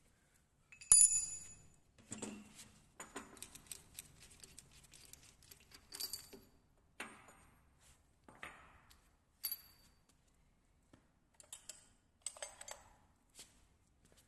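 Steel mold parts and tools clinking and clattering as a clip-making machine's mold is taken apart. A sharp ringing clink about a second in is followed by a run of rattling and scraping, with more metallic clinks and a few scattered knocks.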